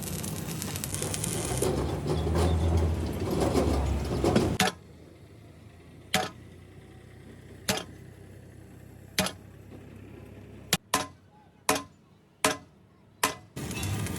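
Loud, dense workshop noise with a low rumble for the first four or so seconds, then stops suddenly. A series of sharp knocks follows, such as tool strikes on metal, about every second and a half at first and then quicker near the end.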